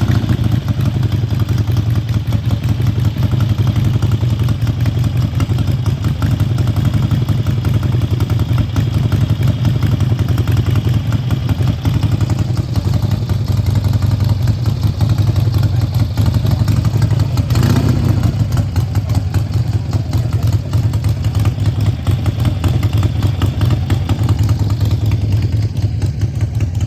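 Harley-Davidson motorcycle engine running steadily with a deep, low pulsing exhaust note, with a brief louder moment about eighteen seconds in.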